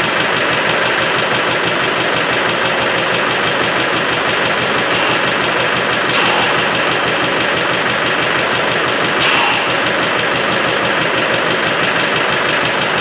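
Rebuilt Land Rover 110 diesel engine idling steadily with a regular clatter. The owner hears a chuffing at the back and too much back pressure, with oil being pushed out of the breather, and wonders whether a piston ring broke during the rebuild.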